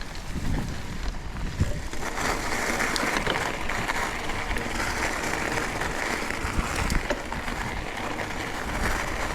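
Bicycle riding along a trail: a low rumble of tyres over the surface with wind on the microphone, joined about two seconds in by a steady hiss that stops near the end.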